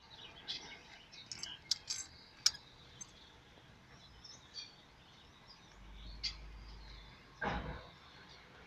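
Wet-street ambience in light rain with short, high bird chirps in the first few seconds. A low rumble comes in about six seconds in, then a brief, louder rush of noise near the end.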